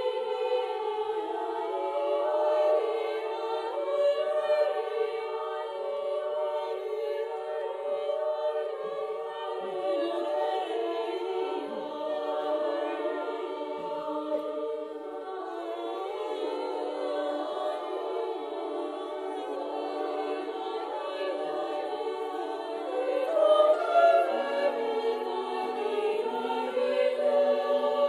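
Women's choir singing a cappella in Basque, sustaining chords in several parts in a church, with a louder swell about twenty-three seconds in.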